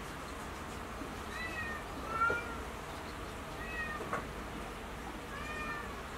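A cat meowing in four short calls, spaced a second or two apart, with a couple of faint clicks between them.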